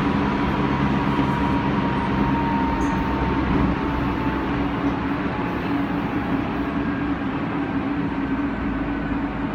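Odakyu 2000 series electric train heard from inside the car while running, with its original inverter software: the VVVF inverter and traction motors hum steady tones over the rumble of wheels on rail. A thin high tone drifts slightly lower during the first half, and the sound eases a little toward the end.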